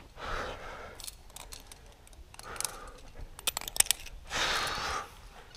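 A lead climber's heavy breathing as he pulls through hard moves: three forceful exhales, the longest near the end, with a run of sharp clicks and rattles in between.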